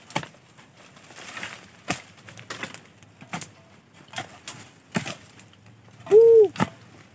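Irregular knocks and scrapes of digging into a land crab burrow, roughly one a second. About six seconds in comes a short 'ooh'-like call that rises and falls, the loudest sound.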